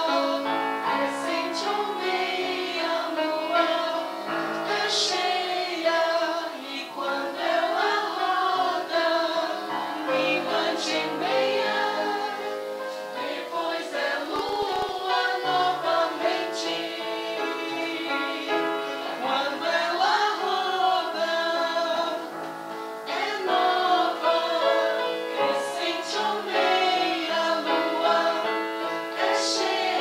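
Mixed choir of men, women and teenagers singing a song together without a break.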